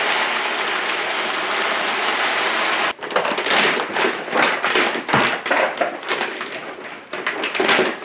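Dried split green peas pouring in a steady stream into a Mylar bag, cutting off abruptly about three seconds in. Then the Mylar bag crinkling and rustling in uneven strokes as it is shaken to settle the peas.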